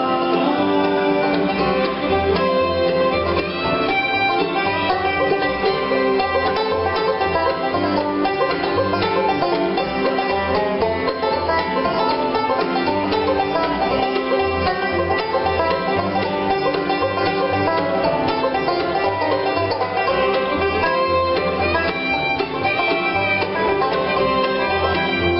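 Bluegrass band playing live: banjo, fiddle, mandolin, acoustic guitar, resonator guitar and upright bass together, the bass keeping a steady beat.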